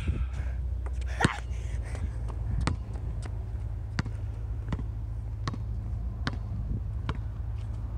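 A basketball bouncing on a hard outdoor court at a steady pace, about one bounce every three-quarters of a second from a couple of seconds in, over a low wind rumble on the microphone.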